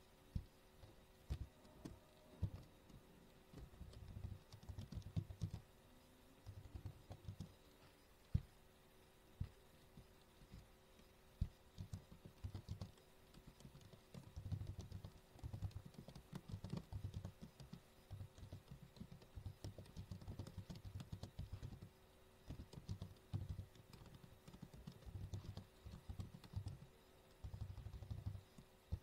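Faint computer keyboard typing in irregular bursts of quick keystrokes, with a few single sharper key clicks in between.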